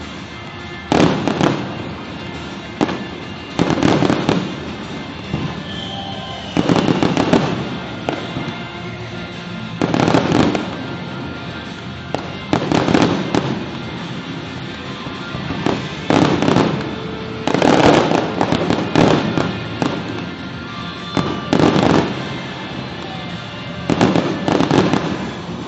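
Aerial fireworks bursting in a rapid series, about a dozen loud booms with crackling tails roughly every two seconds, over music playing underneath.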